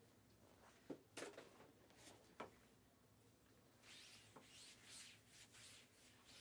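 Faint handling noise: a few light clicks and knocks in the first couple of seconds, then soft rustling and rubbing from a few seconds in.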